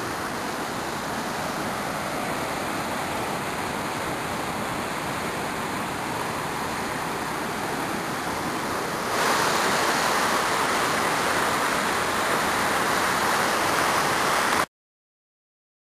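Steady rush of a waterfall, louder from about nine seconds in, cutting off suddenly near the end.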